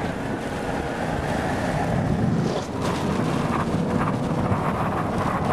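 Road and engine noise inside a car being driven hard and fast, with wind rushing past.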